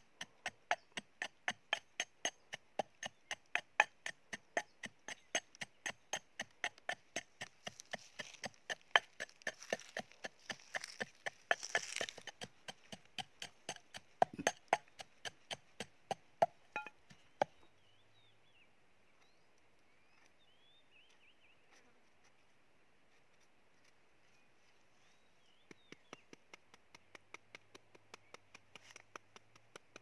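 Wooden pestle pounding in a metal bowl: steady sharp knocks about three times a second, stopping about 17 seconds in. A quiet stretch with a few faint chirps follows, then lighter regular clicks start again near the end.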